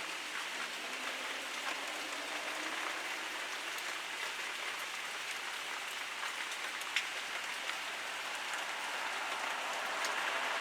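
Heavy rain pouring down, an even hiss dotted with scattered drop taps, with one sharper tap about seven seconds in. The hiss swells near the end.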